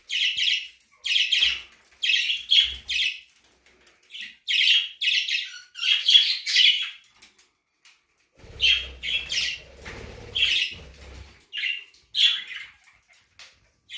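A flock of budgerigars chirping and chattering in short, scratchy calls, several a second, pausing briefly about seven seconds in. A low rumbling noise runs under the calls from about eight and a half to eleven seconds in.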